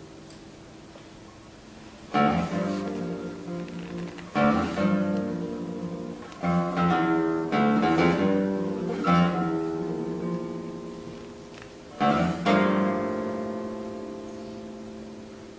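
Nylon-string classical guitar played solo. A chord fades away, then loud chords strike repeatedly from about two seconds in, the music eases off, and about twelve seconds in two more loud chords are struck and left to ring out.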